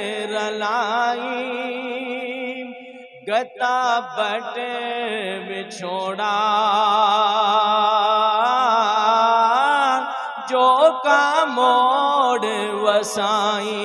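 A male naat reciter singing a Punjabi devotional kalam into a microphone: a wordless, drawn-out melody of long held notes with heavy vibrato and ornaments, broken by a brief pause about three seconds in. A steady drone sounds underneath.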